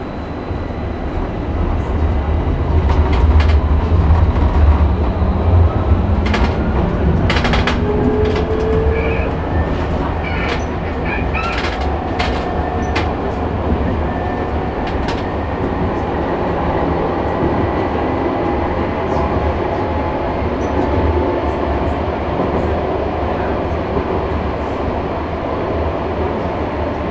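Nockebybanan light-rail tram running along the track, heard from on board: a steady rumble of wheels on rail that swells in the first few seconds and then holds level. Sharp clicks and clacks over the rails come mostly in the middle, with faint whines rising and falling in pitch.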